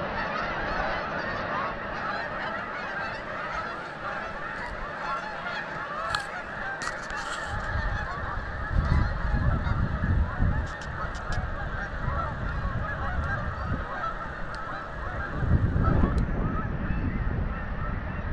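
A flock of Canada geese honking continuously, many calls overlapping. A low rumble swells up about halfway through and again near the end.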